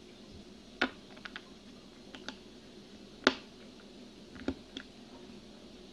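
A scattering of short, sharp clicks and taps as a wooden fingerboard and its small truck parts and screws are handled and pressed against a tabletop while the trucks are fitted. The loudest clicks come about a second in and just after three seconds in.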